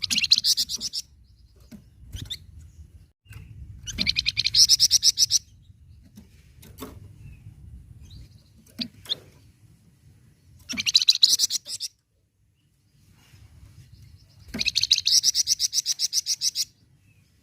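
Song of a flamboyan, the cage songbird of Indonesian bird-keeping: four bursts of fast, high, evenly pulsed rattling trills, each lasting one to two seconds. A few short call notes fall between the bursts, over a low background rumble.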